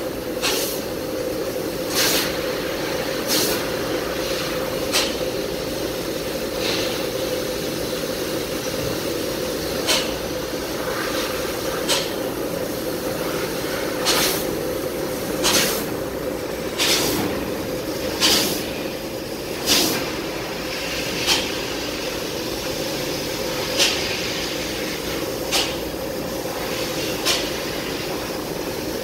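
Mitsubishi CNC laser cutting machine cutting 1.6 mm sheet metal: a steady machine drone with short bursts of hissing every one to two seconds.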